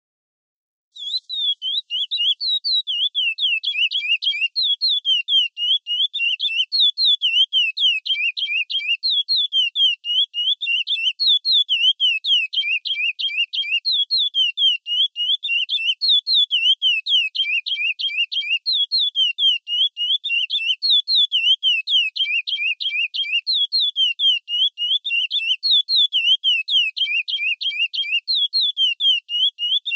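Chestnut-bellied seed-finch (curió) singing the 'Praia Clássico' song type: a fast, unbroken series of clear whistled notes sweeping down and up, starting about a second in and repeating in phrases about every five seconds.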